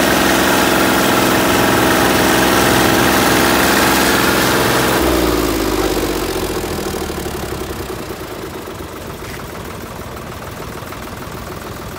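Tractor diesel engine running at raised revs, then throttled back about five seconds in: the pitch falls and it settles to a quieter idle.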